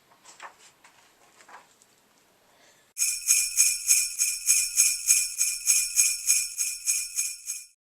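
Jingle bells shaken in a steady rhythm, about four shakes a second. The jingling begins about three seconds in after a quiet start and cuts off abruptly near the end.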